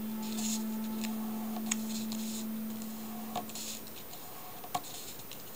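Folded sheet of printer paper being creased by fingers: short papery rustles and a few sharp clicks as the flaps are pressed flat. A steady low tone is heard for about the first four seconds, then stops.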